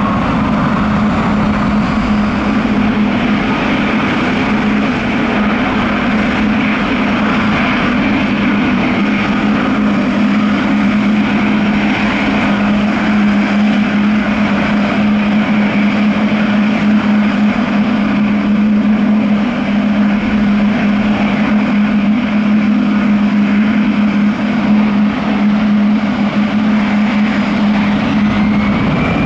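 Jet airliner engines running steadily: a constant low hum over a broad rushing noise, with no rise or fall in level.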